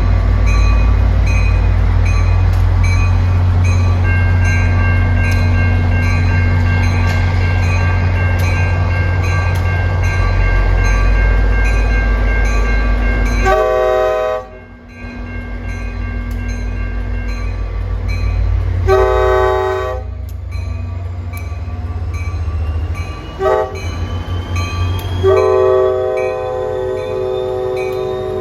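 NJ Transit diesel locomotive running loudly at the platform, then sounding its multi-chime air horn as it pulls out: long, long, short, long, the grade-crossing signal. A faint rising whine comes in under the later blasts as the train gathers speed.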